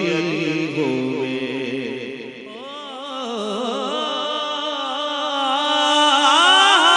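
A man singing solo into a microphone, drawing out long wavering, ornamented notes; near the end his voice climbs, grows louder and holds a long note.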